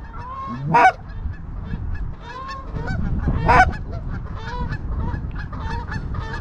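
A flock of Canada geese honking as it comes in to land, many overlapping calls, with two much louder, closer honks about a second in and about three and a half seconds in.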